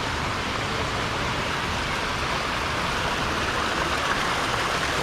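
Steady rush of running water, as from the water flowing at a fish pond, getting slightly louder near the end.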